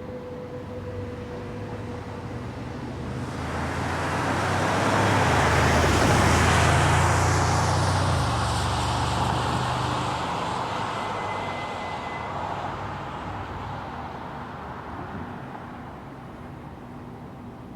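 A vehicle passing by, its sound swelling to a peak about five to eight seconds in and then fading away.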